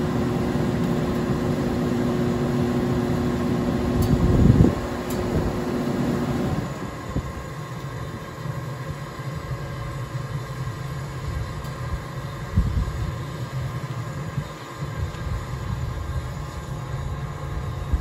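Gas furnace running with its blower motor humming steadily, with a short louder rush about four seconds in. A couple of seconds later the blower shuts off and its hum stops, leaving the quieter steady sound of the burners and combustion fan still firing. With the limit switch bypassed, nothing stops the burners, so the heat exchanger begins to overheat.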